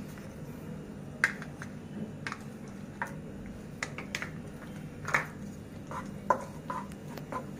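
Butter melting in hot oil in a nonstick kadhai, crackling and popping in scattered sharp spits over a steady low hum, as the butter heats up. Near the end a wooden spatula begins stirring it.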